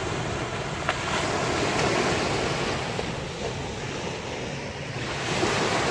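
Small waves washing onto a pebble-and-sand shore, a steady wash that swells about a second in, eases off, and rises again near the end, with some wind rumble on the microphone.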